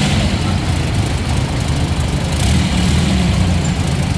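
Classic coupe's engine running at a steady, deep idle as the car creeps slowly past.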